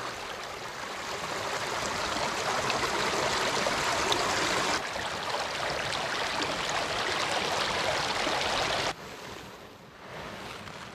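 Stream water running, a steady rushing wash of water noise. The sound changes abruptly about five seconds in and drops much quieter near the end.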